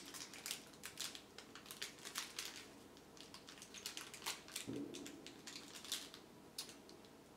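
Faint crunching of a mouthful of cranberry nut bar being chewed: a quick, irregular run of small crackles and ticks, mixed with light crinkling of the bar's foil wrapper in the hands. A short closed-mouth hum sounds a little past halfway, and the crackles thin out near the end.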